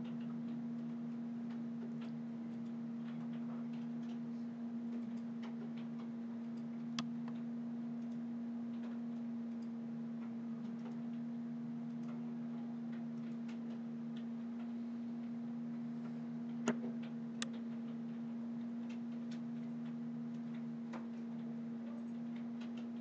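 Steady low hum with scattered faint clicks, a few sharper ones about 7 and 17 seconds in: computer mouse clicks while a picture is dragged and resized on screen.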